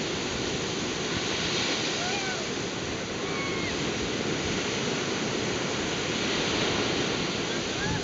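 Big surf breaking and washing up a sandy beach: a steady rush of water noise that swells slightly now and then. A few faint short calls sound over it about two seconds in and again near the end.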